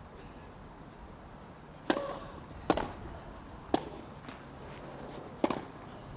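A tennis rally: rackets striking the ball four times, irregularly about one to one and a half seconds apart, over a low steady crowd background.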